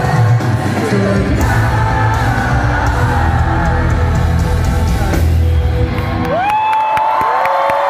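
Loud live concert music with a heavy, pounding bass beat, heard from within the crowd. About six seconds in the bass drops out and two long, high whoops sweep up and hold.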